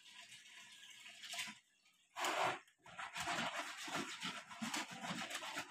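Clothes being hand-washed in a plastic tub of water: irregular sloshing and squishing as they are worked by hand, with a short burst of noise about two seconds in.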